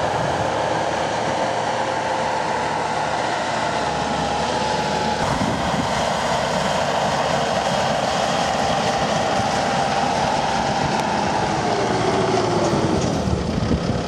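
Skid steer running with its direct-drive brush cutter attachment spinning: a steady mechanical drone with a high whine over it. The whine drops in pitch near the end.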